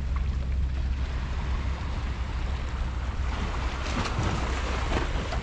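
Wind buffeting a GoPro's microphone: a steady low rumble under a rushing hiss, with rougher, brighter noise swelling about three to five seconds in.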